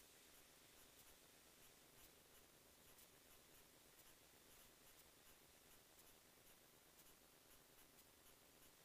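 Near silence: a faint steady hiss with scattered faint ticks.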